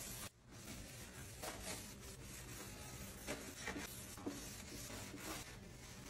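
Sponge scrubbing cream cleaner over a dishwasher's stainless-steel inner door: faint, irregular rubbing strokes.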